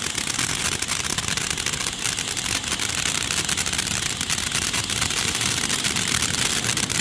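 Firework fountain burning: a steady hiss of spraying sparks with a dense, fine crackle.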